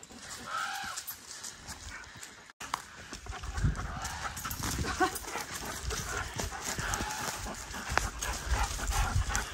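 Common raven calling several times, short arched croaks, over footsteps crunching on dry leaf litter on a forest trail.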